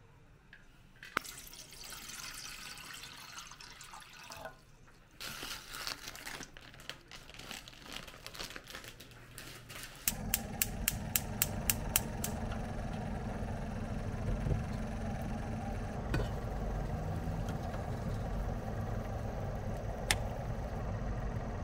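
Tap water running and splashing into a small metal pot as it fills. About halfway through, a gas hob's igniter clicks rapidly for about two seconds until the burner lights, and the steady low rush of the burner flame then runs on. There is one sharp click near the end.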